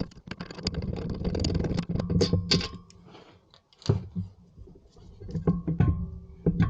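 Irregular clicks and knocks of hand tools and metal parts being handled on a car's front brake assembly, with a short quieter spell in the middle.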